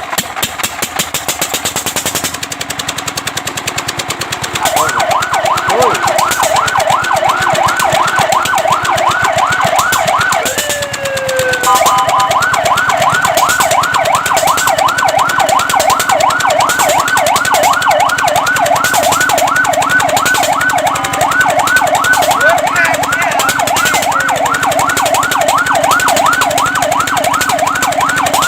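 A fire truck siren on a fast yelp, warbling up and down about four times a second. It starts about five seconds in, after a rapid steady rattle, and near the middle it breaks for a second into a slower sweep before the fast warble resumes.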